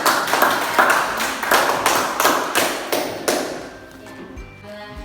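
Hands clapping in a steady rhythm, about three claps a second, stopping about three and a half seconds in. Quieter music begins after the claps end.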